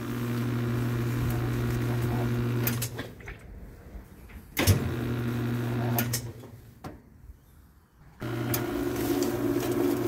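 Whirlpool-built top-loading washer's direct-drive motor humming steadily in the spin cycle; it cuts out twice and starts again, once with a click about four and a half seconds in. The tub fails to spin and only the agitator shaft turns, which the repairman first puts down to a worn bushing or a slipping clutch.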